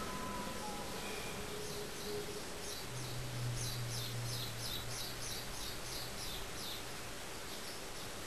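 Outdoor background noise with a small bird calling: a long run of short, quickly repeated high chirps through the second half.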